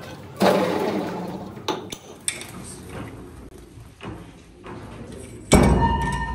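Metal clanking: two heavy metal-on-metal impacts, about half a second in and near the end, the second leaving a short ringing tone, with a few lighter clinks between.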